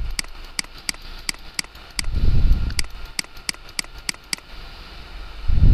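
Computer mouse button clicking repeatedly, about two to three sharp clicks a second, stopping a little before the end. A low muffled rumble comes about two seconds in and again, louder, at the end.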